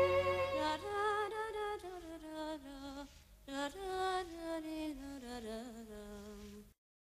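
Background music: a slow single melodic line with vibrato that steps downward in pitch, with a brief break partway through, cutting off suddenly near the end.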